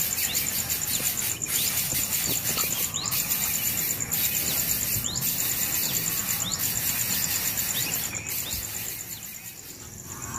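Outdoor ambience: a steady, fast-pulsing high-pitched insect trill, with short rising bird chirps repeated about once a second. It grows quieter near the end.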